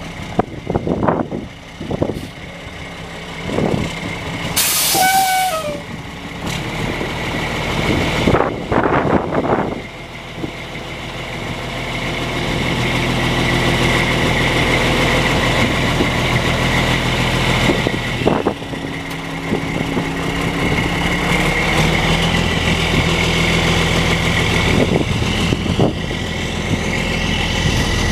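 2006 Mack Granite plow truck's diesel engine running steadily, its drone louder and even from about ten seconds in. Scattered knocks come in the first ten seconds, with a short burst of air hiss about five seconds in, like an air-brake release.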